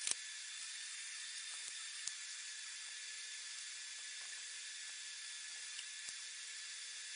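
Steady, even hiss with a faint hum. A few light metallic clicks sound over it, the loudest right at the start as the steel parts are set in place.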